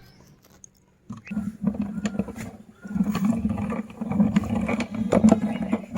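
Meat grinder crushing mini chocolate candies: a steady low hum with dense crunching and crackling. It starts about a second in and briefly drops out just before the three-second mark.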